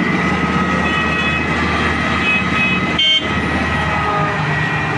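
Heavy diesel road-construction machinery running steadily with an engine drone and a steady whine. There is a brief interruption just after three seconds in.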